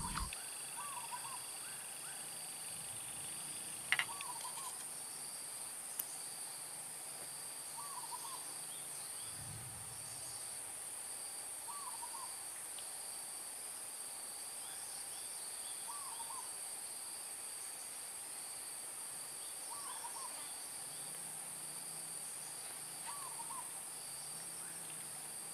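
Swamp ambience: a steady high-pitched insect drone, with a bird's short call of two or three notes repeating about every four seconds. A brief knock comes about four seconds in.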